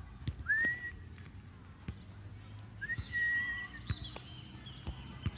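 Two high whistled notes: a short rising one about half a second in, then a longer held one about three seconds in, with a few light taps.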